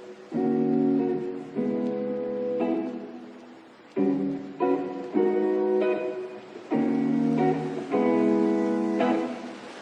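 Background music: acoustic guitar strumming chords, each chord ringing out and fading before the next.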